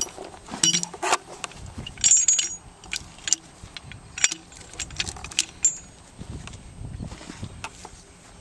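Steel chain and hook clinking and rattling as the chain is set around a log: a string of sharp, irregular metallic chinks, thickest in the first few seconds.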